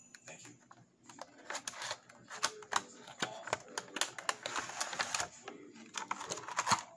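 Packaging of a nail polish gift set being handled: the cardboard box and its clear plastic tray of glass bottles give irregular clicks and crackles as the tray is slid out, starting about a second in.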